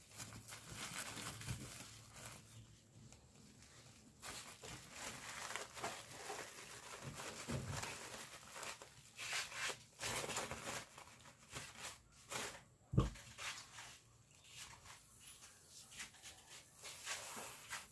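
Rustling and crinkling of burlap and mesh bouquet wrapping being handled, in short irregular bursts, with one sharp thump about thirteen seconds in.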